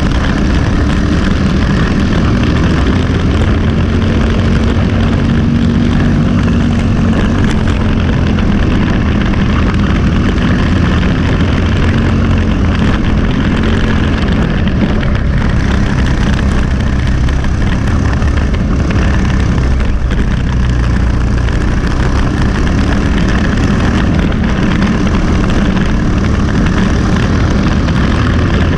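Briggs & Stratton LO206 single-cylinder four-stroke kart engine running hard under racing load, heard loud from onboard the kart, its note shifting a little in pitch.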